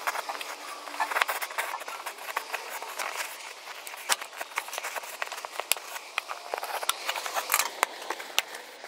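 Plastic fog light inlet cover being worked out of a 7th-gen Honda Civic front bumper by hand: an irregular run of small clicks and crackles as the soft plastic flexes and rubs free of its mounting.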